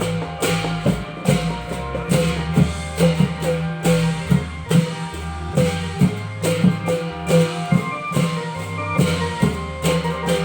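Thai klong yao long-drum ensemble playing a steady, driving rhythm: drum strokes about two or three a second over sustained bass and melodic instrument tones.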